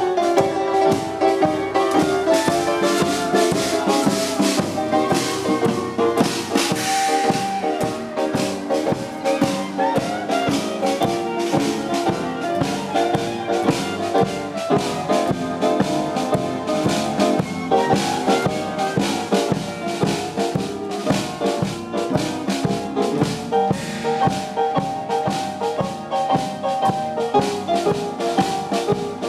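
A small live band playing a tune with drum kit, upright bass and keyboard, with a steady rattling percussion beat.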